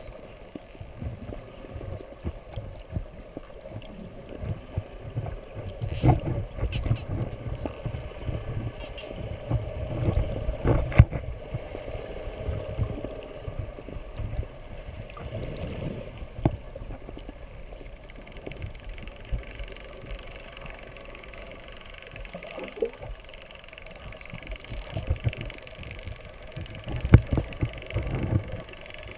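Spinner dolphins whistling underwater: many short, high-pitched rising and falling whistles scattered throughout, over a steady low rumble of water against the camera housing with occasional knocks and sharp clicks.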